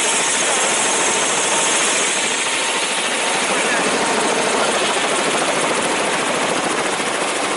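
Helicopter running on the ground close by with its rotor turning: a loud, steady noise of rotor and engine.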